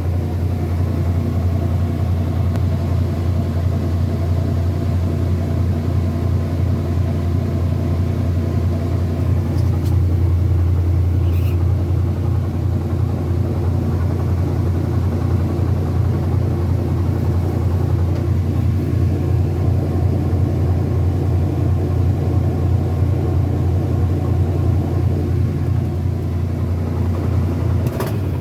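Kenmore washing machine running with a loud, steady low hum that cuts off abruptly near the end.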